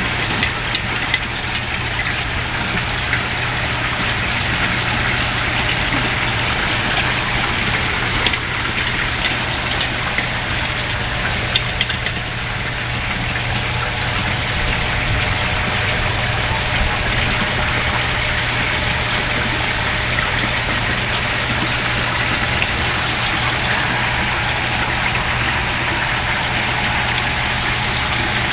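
A pump running on a koi tub: a steady low motor hum under a constant wash of churning, splashing water.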